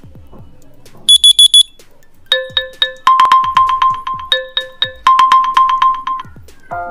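OnePlus Nord CE 2 Lite's single loudspeaker playing system ringtone previews as they are tapped in the ringtone list: four quick high beeps about a second in, then a rapid electronic beeping pattern that switches back and forth between two figures, and a different melody starting near the end. It plays loudly.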